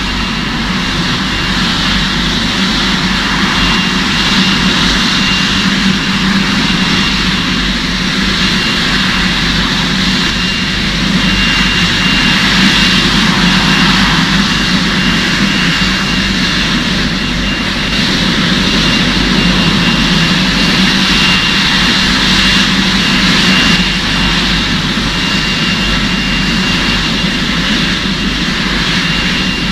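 Jet-engine sound of a model airliner built from Coca-Cola cans: a steady whine and rush, with a thin high whistle held throughout and a low hum underneath.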